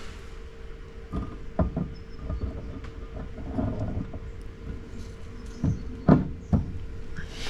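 Irregular knocks and clunks of car parts being handled and fitted during mounting work on an axle and hub, with three sharper knocks near the end, over a faint steady hum.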